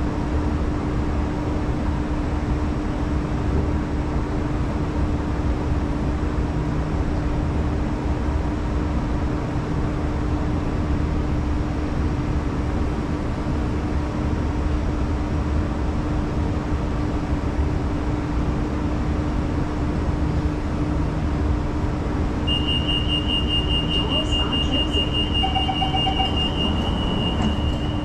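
Steady hum of a Singapore MRT train standing at a platform with its doors open, its electrics and ventilation giving a low rumble and a held tone. About 22 seconds in, a rapid high-pitched door-closing warning beep starts and continues as the doors slide shut near the end.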